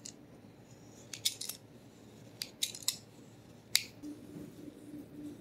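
Metal potato peeler scraping along a chocolate bar in short strokes to shave chocolate curls: a series of quick, sharp scrapes and clicks in the first four seconds or so.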